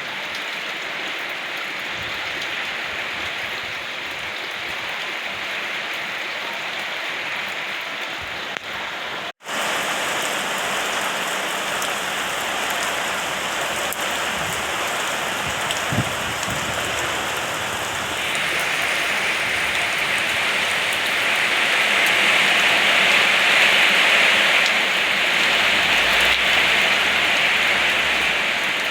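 Steady rain falling. It cuts out for a split second about a third of the way through, then comes down heavier and louder about two-thirds of the way in.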